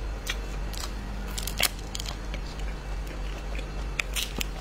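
Crisp cracks and crackles of fresh wumi stalks (water bamboo swollen with black smut) being snapped and peeled apart by hand: a handful of sharp snaps, a few of them bunched together around a second and a half in and again near the end.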